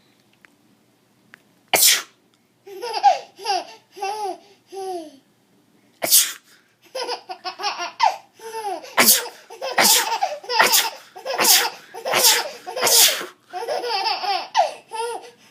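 A string of sneezes: one about two seconds in, another about six seconds in, then a quick run of five or six in a row, with high-pitched laughter between them.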